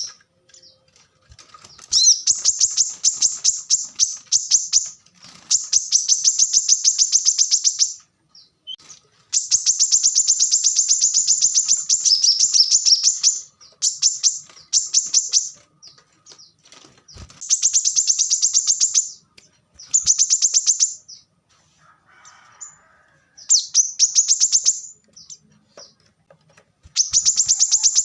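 Brown-throated sunbird (kolibri kelapa) singing: fast, tight trills of high, thin notes in bursts of one to three seconds, with short pauses between them.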